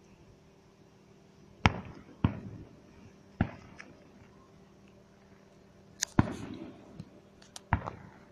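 Fireworks going off: a string of sharp bangs at uneven intervals, each trailing off in an echo, with a few smaller cracks between them.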